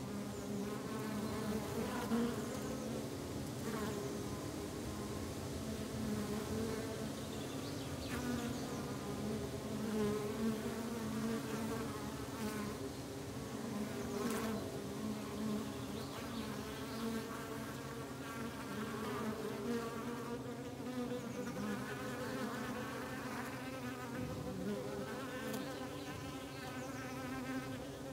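Many honeybees buzzing together: a steady, dense hum whose pitch wavers as individual bees come and go.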